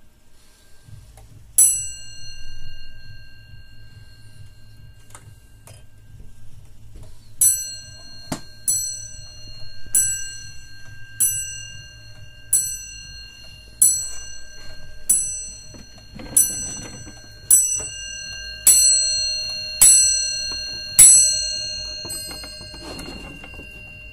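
Warmink Friese tailed wall clock ticking steadily while its brass bell is struck once, then about six seconds later strikes twelve evenly spaced blows a little over a second apart, each stroke ringing on and fading.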